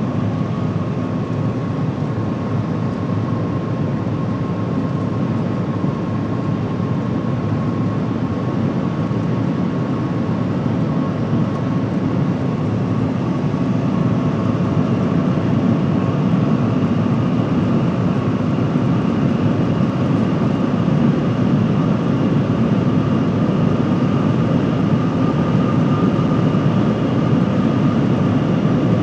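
Cabin noise of the Shanghai Maglev (Transrapid) train running at speed: a steady rush with a faint high whine on top. It gets slightly louder about halfway through.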